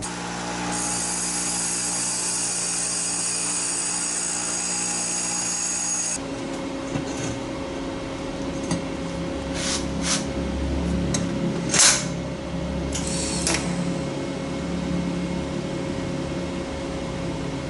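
TIG welder running with a steady electrical buzz and hiss as a flange is tacked onto a stainless exhaust pipe. The tone changes about six seconds in, and a handful of sharp clicks and knocks come in the middle as the pipe and flange are handled in the vise.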